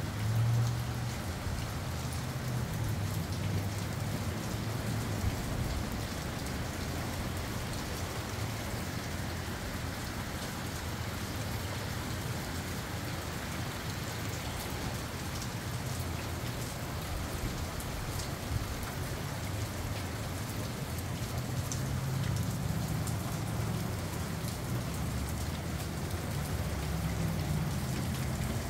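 Steady rain falling, with gusts of wind rumbling low and swelling just after the start and again over the last several seconds.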